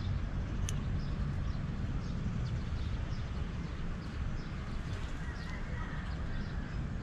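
Scissors snipping leafy stems off a shrub, with one sharp snip about a second in and faint short ticks, over a steady low rumble.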